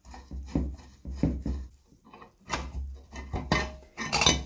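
Rusty steel shaft and its gear being worked loose by hand in an antique cast-iron grinder housing: irregular metal knocks, clinks and scraping, the loudest clatter near the end.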